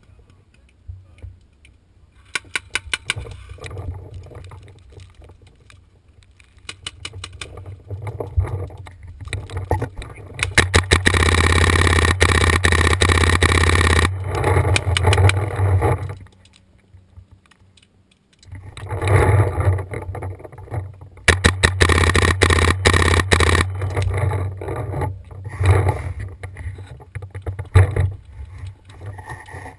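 Paintball markers firing in rapid bursts of sharp shots, the longest and loudest burst lasting several seconds near the middle, then more bursts after a short lull.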